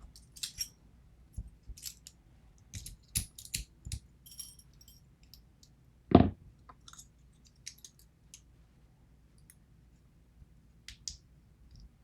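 Small metal parts of a Schlage KIK lock cylinder and hand tools clicking and clinking as the lock is taken apart, in scattered light clicks with one louder knock about six seconds in.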